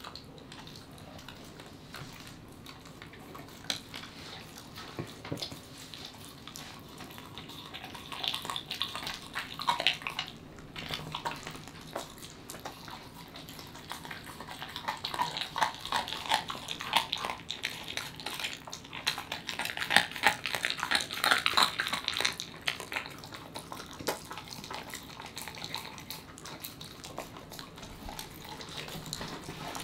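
Welsh corgi licking and chewing a raw poultry leg: wet smacking and gnawing with many short clicks, busiest around ten seconds in and again from about fifteen to twenty-three seconds in.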